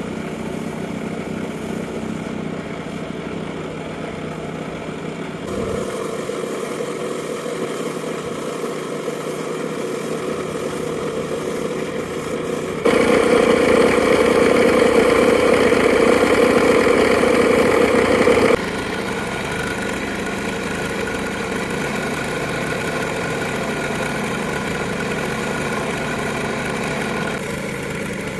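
Machinery running steadily, heard in several stretches that change abruptly from one to the next. The loudest stretch lasts about six seconds in the middle.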